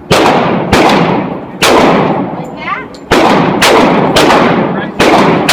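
Gunshots fired one after another at an uneven pace, about seven in all, each with a long echoing tail.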